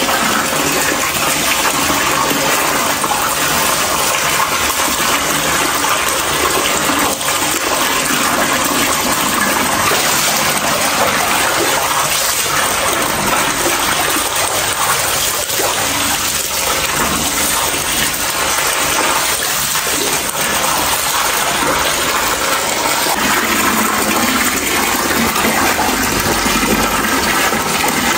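Steady rushing water, a continuous even noise that does not change.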